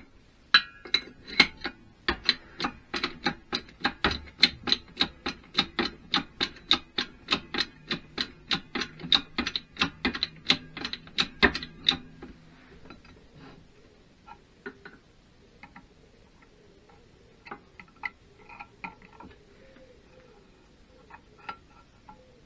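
Hydraulic shop press being pumped by its hand lever to bring the ram down: a quick, even run of clicks, about three a second, that stops about twelve seconds in. After that come a few scattered light taps of small metal parts being handled on the press bed.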